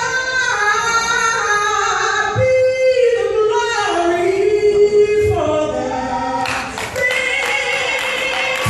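Live gospel singing: a woman's lead voice holding long, sliding notes with choir voices behind; sharp percussive hits come in over the last couple of seconds.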